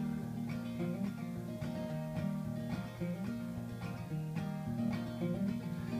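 Solo acoustic guitar playing picked and strummed chords in an instrumental break of a folk song, with the voice coming back in at the very end.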